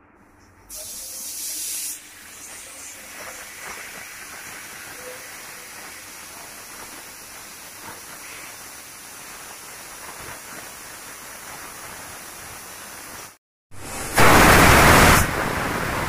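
Pressure cookers on a gas stove releasing steam at the weighted valve. A short loud burst of hissing comes about a second in, followed by a steady softer hiss of steam escaping. Near the end a second cooker lets out a much louder burst of hissing steam for about a second, the 'whistle' that shows it has reached pressure.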